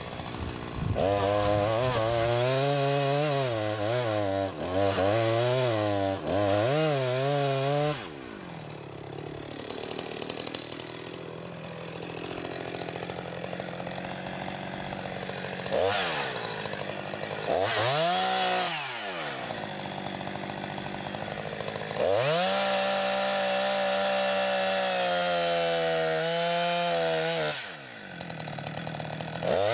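Chainsaw engine revving to full throttle, its pitch wavering and dipping as it bites into wood, then dropping back to a lower idle for stretches. It revs up in short blips and runs high and steady again for several seconds before a drop near the end.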